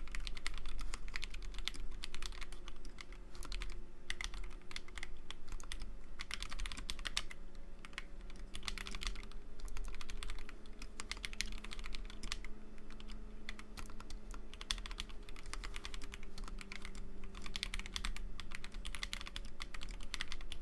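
Typing on a custom 60% mechanical keyboard with a 3D-printed case and NovelKeys Silk Milkshake linear switches, the stabilizers lubed and foam-padded. The keystrokes come fast and dense, in runs broken by short pauses.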